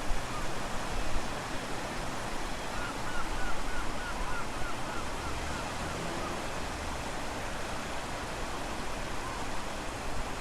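Steady outdoor rushing noise of sea and wind, with a bird calling a quick run of about a dozen short chirps a few seconds in.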